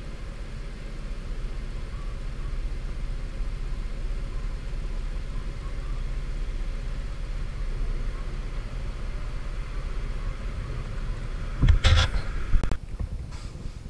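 Kymco 125 cc scooter on the move: steady engine rumble mixed with wind and road noise, with a few sharp knocks near the end.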